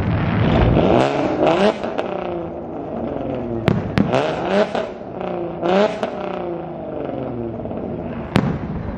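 Aerial fireworks bursting with a few sharp bangs: two close together around the middle and one near the end. Under them a vehicle engine revs in rising, wavering surges several times.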